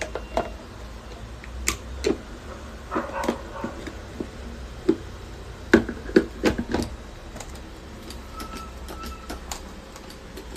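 Sharp plastic clicks and knocks from fitting an electric food chopper together: the lid on the bowl and the motor head set and seated on top. The taps come irregularly, a dozen or so, loudest and most crowded a little past halfway; the motor is not running.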